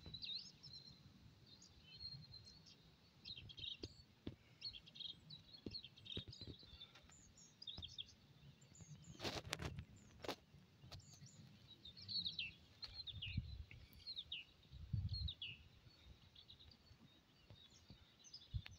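Small birds chirping and twittering, with a faint low rustling and a few sharp clicks about nine to ten seconds in.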